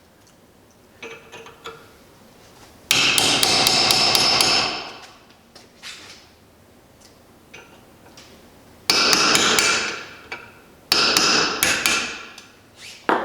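Hammer driving a steel chisel into a drilled-out broken bolt in a cast power takeoff housing, in three flurries of rapid, ringing metal-on-metal blows. The blows are meant to collapse the bolt's remaining shell inward so it can be picked out of the threads.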